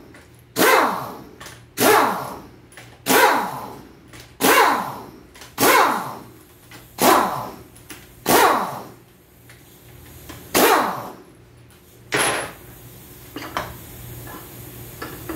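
Pneumatic impact wrench fired in nine short bursts, about one every second and a quarter, each starting sharply and winding down in pitch, as it loosens the bolts of an automatic transmission's pump assembly. The bursts stop about twelve seconds in, leaving a few light metal clicks.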